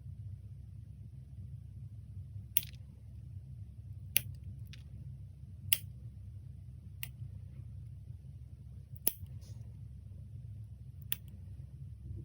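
About seven sharp, separate clicks a second or two apart over a steady low hum.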